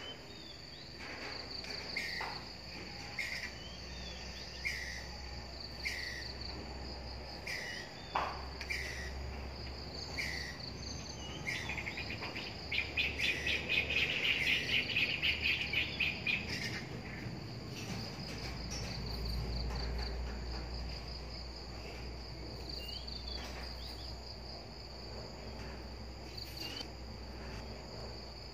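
Squirrel alarm-calling at a cat: short chirps about once a second, breaking into a rapid rattling chatter about halfway through, then a few more chirps. A steady, pulsing drone of insects runs underneath.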